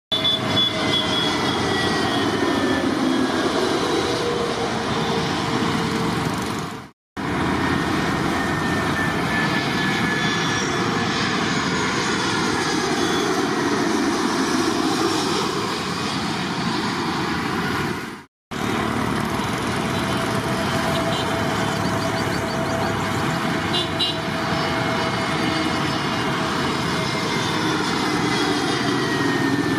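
Jet airliner engines passing close: a loud, steady rush of engine noise with whining tones that slide down in pitch. The sound cuts out abruptly twice, about seven and about eighteen seconds in.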